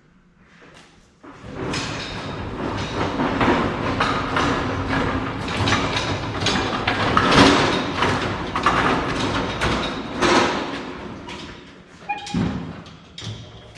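Loud clattering, scraping and thumping of a heavy shop item being handled and set back in place, lasting about ten seconds, with a few separate knocks near the end.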